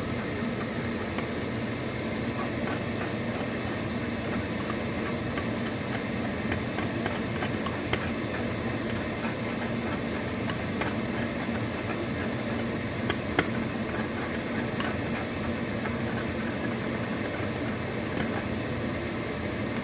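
Steady mechanical hum, like a running kitchen appliance or fan, with a few faint clicks and taps, one a little louder about 13 seconds in.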